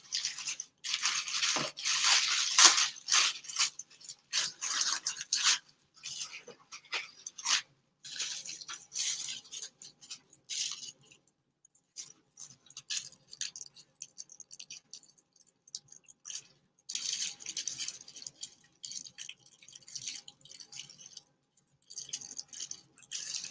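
Air fryer packaging being handled and pulled open: irregular rustling, crinkling and scraping of the box and wrapping, with a couple of quieter stretches partway through.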